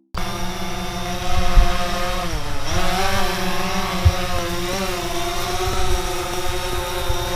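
DJI Phantom 4 quadcopter's propellers and motors buzzing with a stack of whining tones, the pitch dipping and coming back up about two and a half seconds in as the drone changes speed. A few low thumps sound over it.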